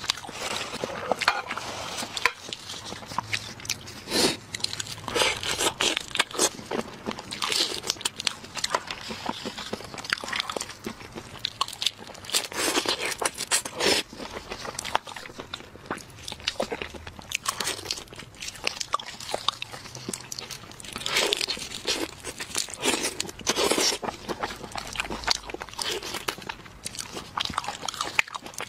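Close-miked eating: irregular crisp crunches and cracks with chewing as shell-on shrimp are bitten and their shells peeled.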